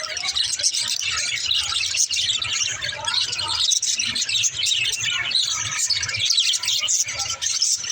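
Budgerigars chirping and warbling, a busy stream of quick, overlapping twitters with no pauses.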